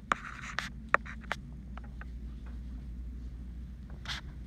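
Stylus writing on a screen: a few sharp taps in the first second and a half, then fainter strokes and a short scratch near the end, over a steady low hum.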